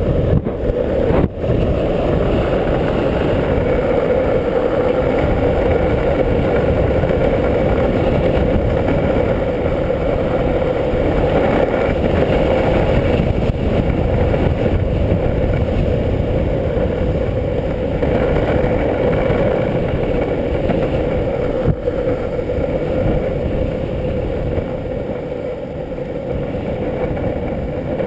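Longboard wheels rolling fast on asphalt under heavy wind rush on a GoPro's microphone during a downhill skate run, a steady dense noise with a couple of brief sharp knocks, one about a second in and another about two-thirds of the way through.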